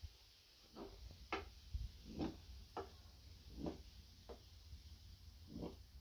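Knife cutting down through a stack of rolled khinkal dough rounds onto a floured wooden board: about eight soft knocks of the blade on the wood, unevenly spaced.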